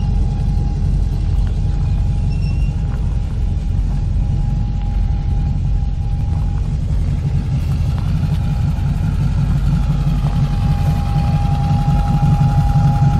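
Steady low rumble of a running vehicle, with a faint steady whine over it.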